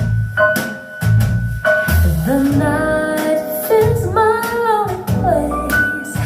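A pop song: a singer holds long, wavering notes without clear words over steady drums and guitar.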